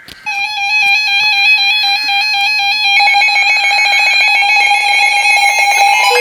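Weather-alert radios sounding their alarm for a Severe Thunderstorm Warning on NOAA Weather Radio: a loud electronic alarm of rapidly alternating beeps that starts suddenly. A second alarm joins about three seconds in, and another beeping tone with a falling sweep comes in near the end.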